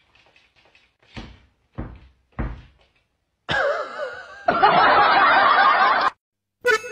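Three short low thumps, then an added comic sound effect: a wavering squeal that runs into a loud spluttering noise about a second and a half long, cutting off sharply.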